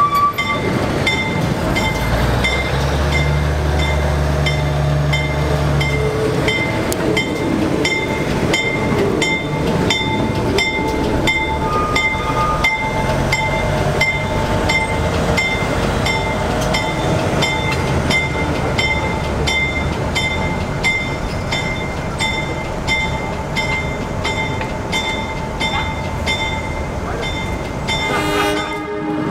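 Diesel switcher locomotive rumbling past, its engine loudest in the first few seconds, while its bell rings steadily about twice a second.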